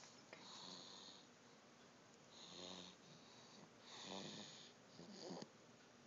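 Soft snoring: about four slow breaths, one with a rattling buzz and several with a whistling hiss.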